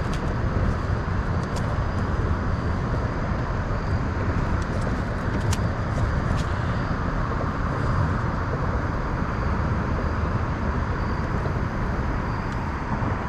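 Steady outdoor rumble of wind buffeting the microphone over the rushing of river water, with a few faint clicks.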